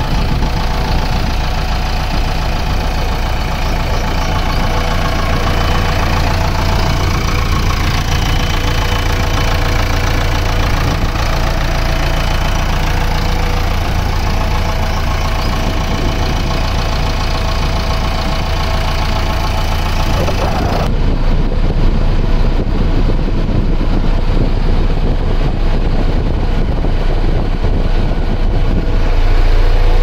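JCB backhoe loader's diesel engine idling steadily.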